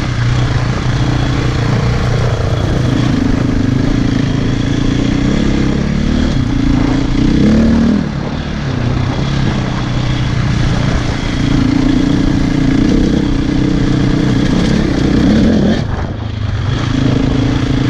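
Off-road motorcycle engine running under way, its pitch rising and falling with the throttle. The engine eases off briefly twice, about eight seconds in and again near the end.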